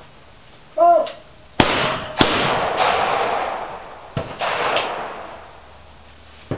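A shooter's short shouted call, then two shotgun shots about half a second apart, each ringing on and echoing. About two seconds later comes a click and a further, quieter bang.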